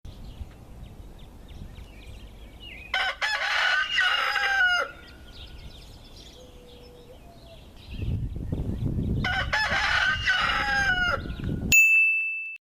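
A rooster crows twice over background noise, and a low rumble rises beneath the second crow. Right after the second crow comes a short, high ding.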